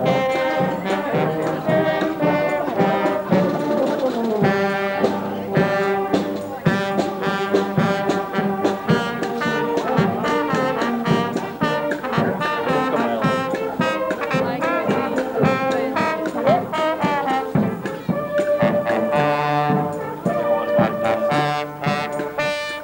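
Marching band playing as it passes: trombones and trumpets carry a tune over snare drums and a bass drum.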